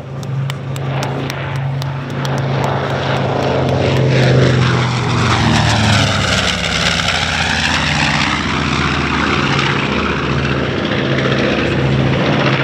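A North American B-25J Mitchell's two Wright R-2600 radial engines and propellers running as the bomber flies past low, growing louder to a peak about four to six seconds in, with a sweeping whoosh as it goes by.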